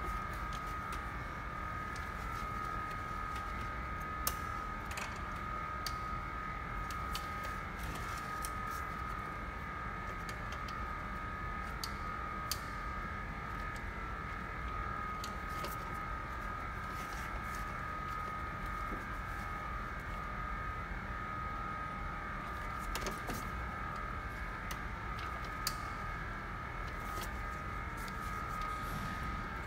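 Scattered light clicks and clacks of hands working parts into the engine bay while the cooling fan control module is refitted, over a steady hum held at one pitch.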